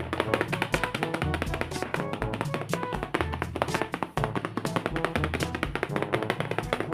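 Background music with a steady, busy beat over a moving bass line.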